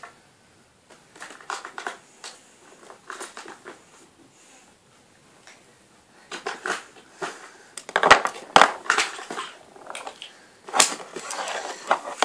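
Small objects being picked up and handled: scattered clicks, knocks and rustling, sparse at first and busier and louder in the second half, with a few sharp knocks.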